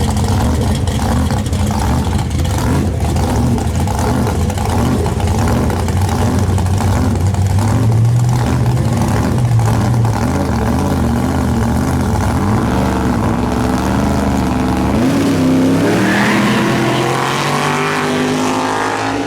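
Big-tire drag race car engines running with an uneven, lumpy beat, then revving up in a rising pitch near the end.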